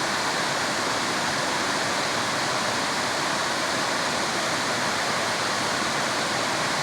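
Water of a creek waterfall pouring down a long slant over shale, a steady rushing sound with no change.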